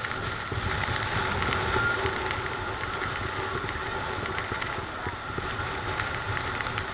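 Steady roar of the Niagara Falls water close up, mixed with the running of the tour boat's engine as it holds against the current.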